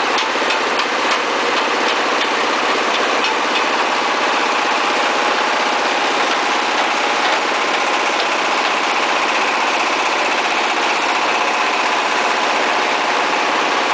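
A brick-making machine's 24 hp diesel engine running steadily, with a few faint clicks in the first few seconds.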